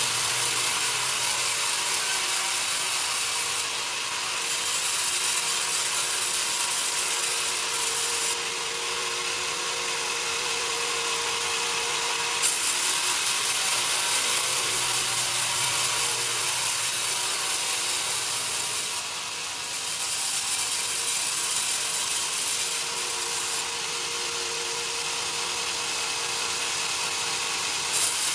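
Sawmill band saw cutting a young pine cant lengthwise: a steady high hiss of the blade in the wood. The level steps up and down several times as the cut goes on, with a sharp knock about twelve seconds in and another near the end.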